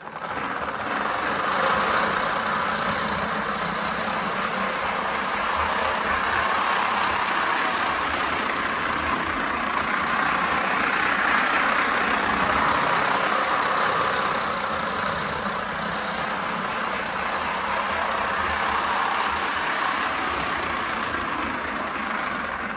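Lionel LionChief Pennsylvania Flyer O-gauge model train running on its track: a steady mechanical running noise of the locomotive's motor and wheels, which starts within the first second as the train pulls away and then holds even.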